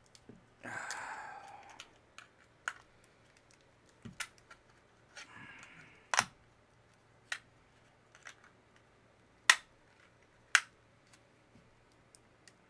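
Plastic casing of a laptop battery pack being pried apart by hand: two short scraping passages, about a second in and again near the middle, and a scatter of sharp clicks and snaps of plastic, the loudest in the second half.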